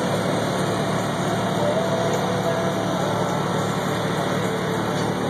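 A food truck's motor running steadily, a constant low hum.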